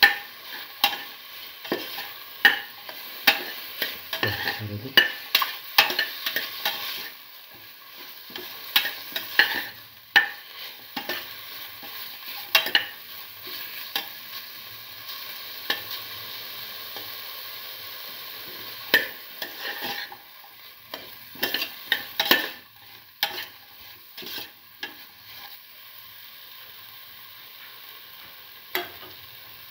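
Carrot pieces frying and sizzling in a pan while being stirred, with frequent scrapes and taps of the utensil against the pan. The stirring is busy at first, comes back in a flurry about two-thirds of the way through, then dies away to a few taps while the sizzle carries on.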